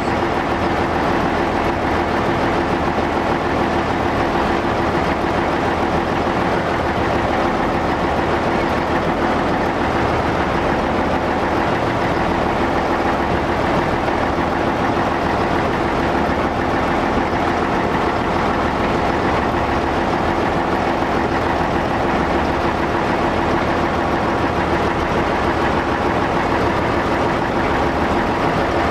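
A Walker diesel railmotor under way, its engine running steadily with wheels rolling on the rails, heard from inside the cab.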